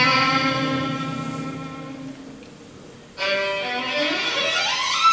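Gypsy-jazz violin and guitar playing freely, out of tempo: a held chord rings and fades away over about three seconds. Then the violin comes back in and slides upward in one long rising glissando.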